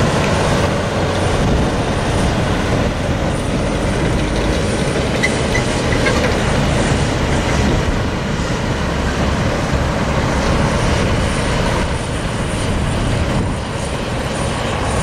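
The 1997 Mack CH613 tractor's Mack E7 12.0-litre inline-six diesel runs steadily as the truck drives around.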